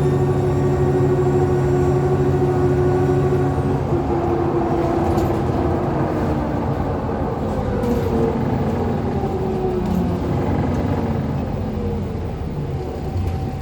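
Alexander Dennis Enviro400 double-decker bus under way: the engine pulls steadily with a high turbo whistle that fades away about four seconds in. After that, groaning tones from the differential slide up and down in pitch as the road speed changes.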